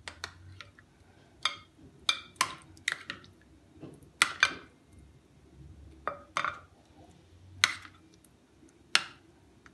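Metal fork clinking against a glass mixing bowl while chicken drumsticks are turned in a thick marinade: about a dozen sharp, irregular clinks.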